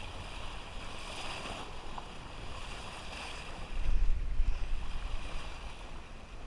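Water rushing and splashing around a motorboat's hull, with wind on the microphone. A heavy wind buffet rumbles on the microphone about four seconds in.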